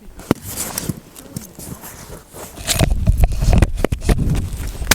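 Irregular sharp clicks and knocks, then from a little past the middle a heavy low rumble of wind buffeting the microphone.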